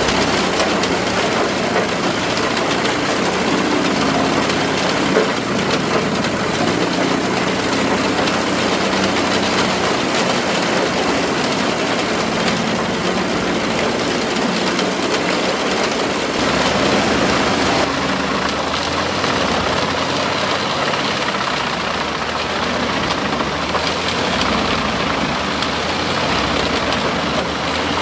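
Eschlböck Biber 84 wood chipper running under load, driven by a Case Magnum 340 tractor, chipping whole conifer trees fed in by its crane and blowing the chips into a trailer: a loud, steady din of engine and cutting. The sound shifts a little past halfway.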